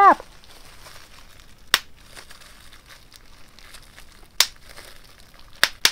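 Tissue paper and plastic bubble wrap crinkling as they are handled, with four sharp snaps spread through.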